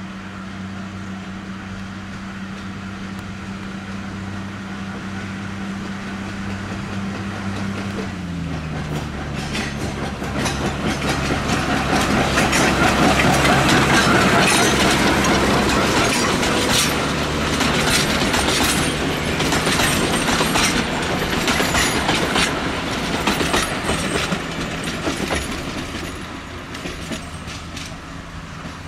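Narrow-gauge Planet diesel locomotive and train: the engine runs steadily, and its note drops about eight seconds in. The train then passes close, wheels clattering and clicking over the rails, loudest midway and fading near the end.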